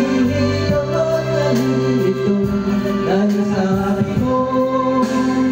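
Karaoke backing music of a slow Tagalog love ballad, with a man singing along into a microphone, holding long notes between lyric lines.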